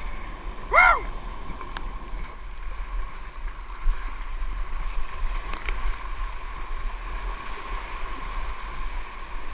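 Steady wash of sea water and wind on the microphone around a kayak, with one brief shouted call about a second in.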